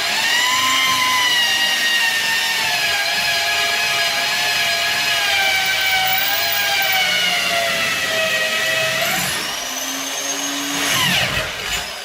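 Electric power tool whining steadily, its pitch sagging and wavering slightly as it works. The whine stops about nine seconds in, and brief gliding tones follow as the tool winds down and is revved again.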